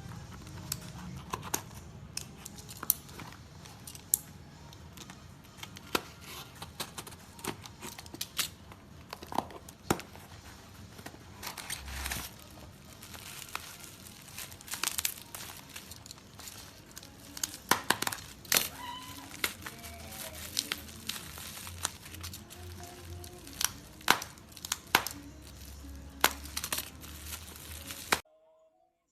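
Plastic packaging crinkling, with many irregular sharp clicks and taps as the keycap puller and its pack are handled, over quiet background music; the sound cuts off abruptly near the end.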